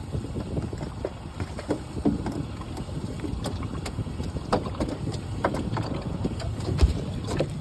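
Wind buffeting the microphone on an open boat, with scattered knocks and clicks from gear being handled on the deck and a heavier thump about seven seconds in.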